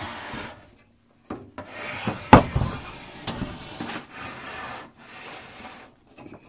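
Handling noise: bouts of rubbing and scraping with a short pause about a second in, a sharp knock a little after two seconds and a lighter click about a second later.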